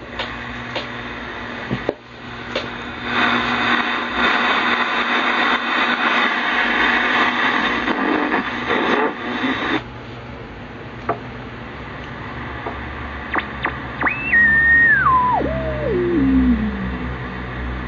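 Shortwave static hiss from a 1970s KENTEC BCL-1 communications receiver's speaker as its tuning dial is turned, with a few clicks. About fourteen seconds in, a whistle comes in high and falls in pitch in steps to a low tone over about three seconds: a heterodyne beat as the tuning sweeps across a station's carrier.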